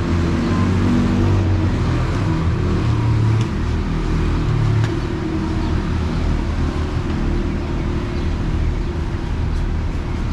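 Road traffic: vehicle engines running close by, a steady low rumble with no clear individual events.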